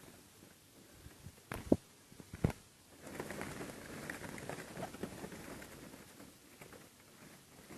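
Handling noises as a dove caught in a string snare is freed by hand: a few sharp clicks about one and a half to two and a half seconds in, then faint, uneven rustling.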